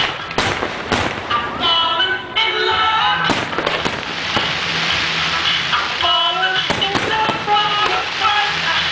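Aerial fireworks bursting in a rapid, irregular series of bangs, with a dense spell of crackle about four to six seconds in. Music plays along throughout.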